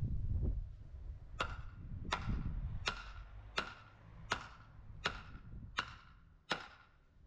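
A hammer drives a wooden post into the ground with eight steady blows, about one every 0.7 seconds, each with a short ring. A brief low rustle of handling comes just before the blows.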